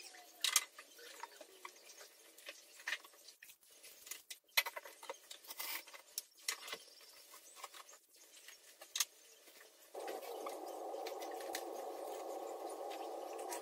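Scattered clicks, taps and knocks of small objects being picked up and set down. About ten seconds in, a steady whirring noise switches on and keeps going, like a small appliance running.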